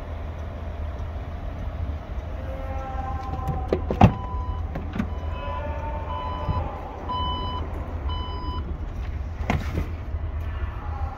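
Porsche Cayenne power tailgate opening: a sharp latch click, then the electric lift motor whining with a rising pitch as the hatch goes up, about four short warning beeps, and another click near the end. A low steady rumble runs underneath.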